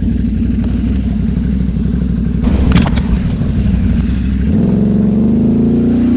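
ATV engine running as the quad rides a muddy, flooded trail. About two and a half seconds in there is a short burst of noise with a few sharp clicks. Near the end the engine settles into a steadier, slightly higher note as the rider gets on the throttle.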